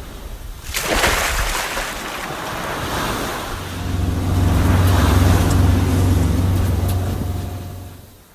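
Ocean waves washing in, with a wave breaking about a second in. From about three and a half seconds a deep, steady, horn-like tone joins the surf and holds for several seconds before fading out near the end.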